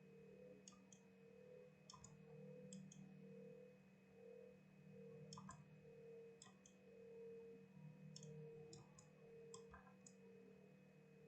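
Faint computer mouse clicks in small clusters every second or so, over a steady low electrical hum.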